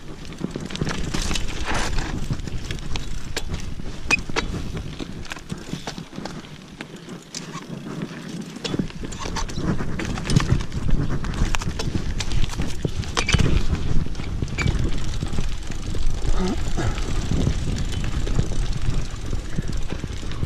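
Mountain bike riding down a rough dirt trail: tyres crunching over dirt and stones and the bike clattering over bumps, with wind rumbling on the microphone. The rattling gets busier and louder about nine seconds in.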